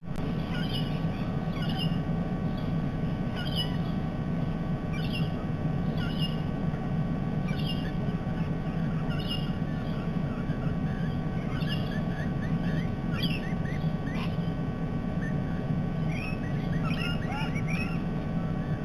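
Birds calling: a short high call repeats about once a second, and quick rising chirps crowd in twice in the second half, over a steady low rumble.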